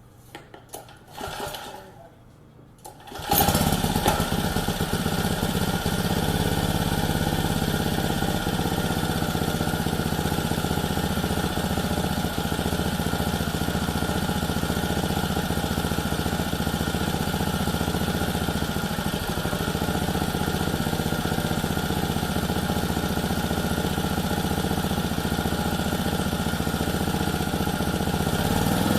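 Lawn edger's small four-stroke engine starting after a few brief faint sounds, catching about three seconds in, then running steadily. It runs well now that its carburetor jets have been cleaned of the dirt that kept it from starting.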